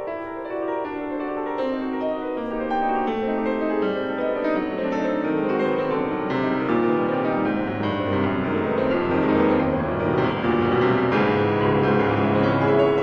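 Solo piano playing classical music, growing steadily louder and fuller as a bass line steps downward.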